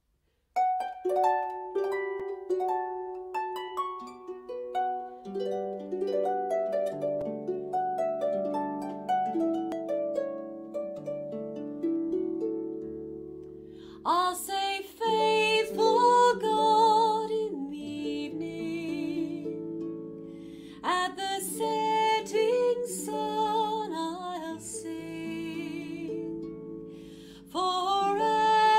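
Harp played solo, single plucked notes ringing out in a slow melody. About halfway through, a woman's voice joins, singing a hymn with vibrato in phrases over the harp accompaniment.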